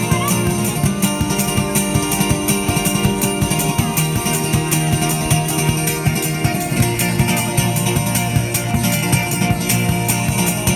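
Acoustic guitar strummed in a steady, even rhythm by a street busker.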